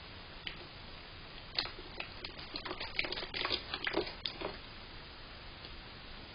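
Cat eating dry kibble off a paper plate: a run of crisp crunches and clicks from about a second and a half in until about four and a half seconds in.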